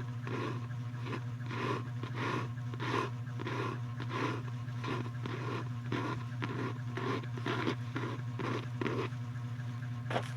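Repeated scraping strokes, about three a second and evenly paced, over a steady low hum.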